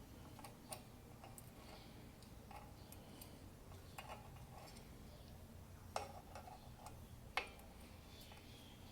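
Faint, scattered metallic clicks and taps of brake parts and tools being handled while fitting MG TD rear brake shoes and return springs, with two sharper clicks about six and seven and a half seconds in, over a low hum.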